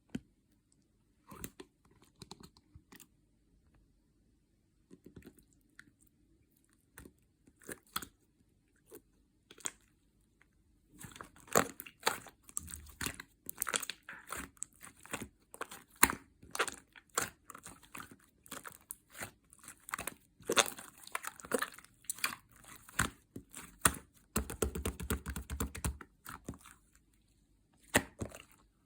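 Pink opaque slime being worked into sky-blue clay by hand: a few scattered sticky clicks at first, then from about eleven seconds in a dense run of crackling, popping clicks as the slime is squeezed and folded.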